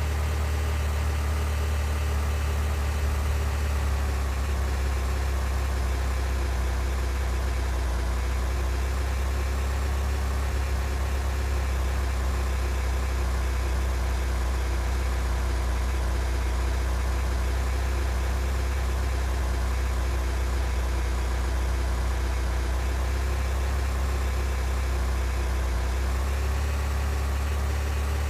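Steady low drone of a car engine running, with a faint steady whine above it and no breaks or sudden sounds.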